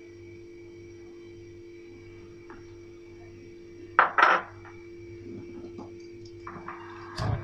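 Two sharp clinks of kitchenware in quick succession about four seconds in, over a steady hum. A dull knock comes near the end.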